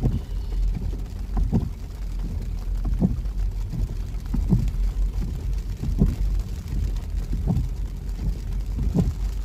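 Car windshield wipers sweeping at a steady beat, about once every second and a half, over a rain-wet windshield, with rain and the car's low rumble heard inside the cabin.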